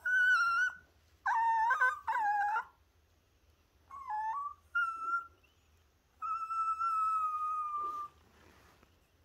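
Long-haired Chihuahua whining and howling: a string of short, high, wavering cries, then one long held howl of about two seconds near the end.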